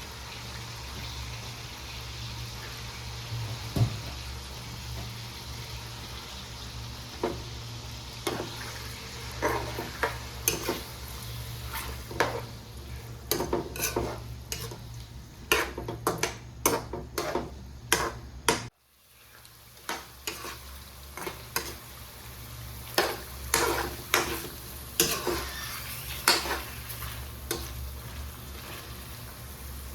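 Chicken karahi frying and being stirred in the pan: a sizzle with runs of spatula scrapes and clinks against the pan, over a steady low hum. The sound drops out abruptly for a moment about two-thirds of the way through.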